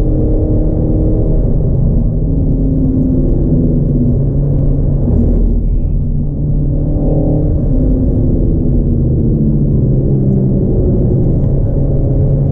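Renault Megane RS Trophy engine pulling hard on track, heard from inside the cabin with heavy low road rumble beneath. The engine note climbs and changes pitch at gear changes, once about five seconds in and again near seven seconds.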